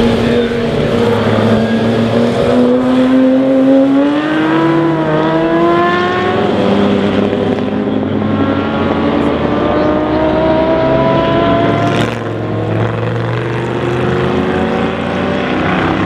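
Historic sports-racing car engines at full throttle, the engine note climbing steadily for several seconds as a car accelerates, then another engine note taking over about halfway. About three quarters of the way through there is a short sharp crack and the sound briefly drops a little.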